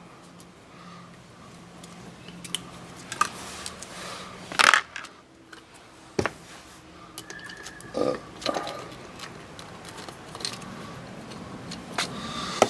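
Small metal engine parts and hand tools clinking and knocking as they are handled and set down, in separate knocks, the loudest a short clatter about four and a half seconds in.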